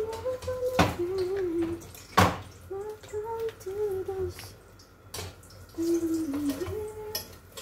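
A person humming a slow tune in sustained notes, with sharp clinks of kitchen utensils three times, the loudest about a second and two seconds in.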